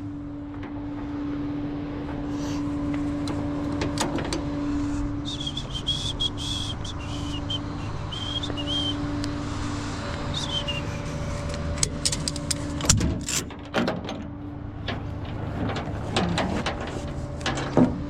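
A vehicle engine running steadily with a low hum, a wavering high whistle partway through, and a few sharp knocks near the end.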